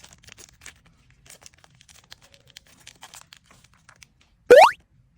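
Light crinkling and small clicks of materials being handled. About four and a half seconds in comes a loud, short whistle that rises steeply in pitch, like a cartoon 'woo' sound effect.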